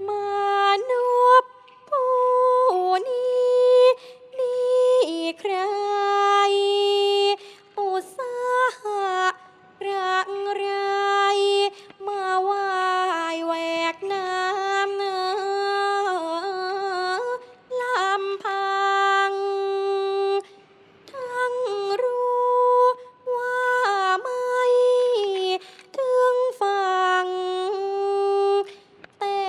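A solo female voice sings a slow Thai classical vocal line. The notes are long and held, with bending ornaments of pitch, and the phrases are separated by short breaks.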